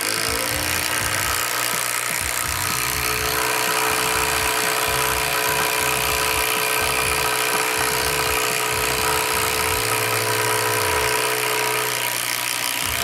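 Kobalt 24V Max brushless 1/4-inch impact driver hammering a long structural lag screw into a wooden beam, running steadily without a pause.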